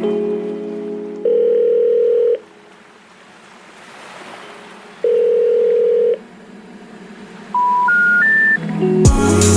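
Telephone call-progress tones: a steady ringing tone sounds twice, each about a second long, then three short beeps step upward in pitch, the special information tone that signals an unreachable or out-of-service number. A musical chord fades out at the start, and music with drums comes in near the end.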